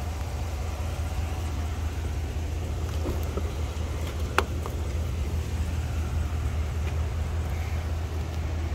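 Steady low rumble with a single sharp click about four and a half seconds in, as the SUV's front door is pulled open.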